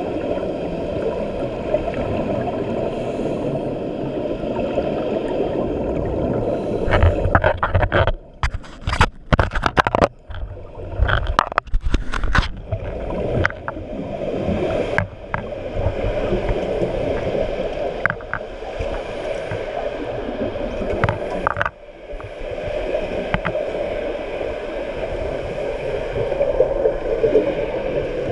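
Underwater sound through a camera housing: a steady, muffled gurgling of scuba divers' exhaled regulator bubbles. It is broken about seven to thirteen seconds in by a run of sharp clicks and knocks.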